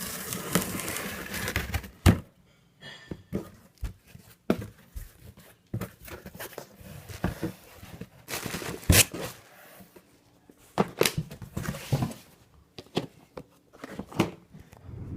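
Plastic shrink wrap crinkling and tearing as it is pulled off a boxed set of manga, with scattered sharp knocks and clicks from handling the cardboard box.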